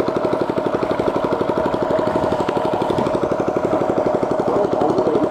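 Small engine running steadily with a rapid, even chugging and a constant hum.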